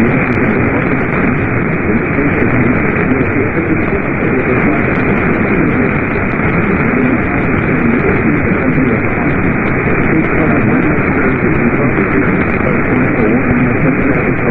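Radio static: a loud, steady, muffled hiss from a radio receiver picking up a weak or empty signal between broadcasts.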